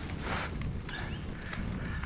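Mountain bike descending a dirt trail: tyres rumbling and the bike rattling over the ground, with wind on the microphone and a short hiss about a third of a second in.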